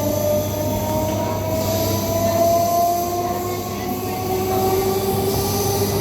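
MMTS suburban electric multiple-unit train running, heard from inside the coach: a steady hum and rumble under a motor whine that slowly rises in pitch as the train picks up speed.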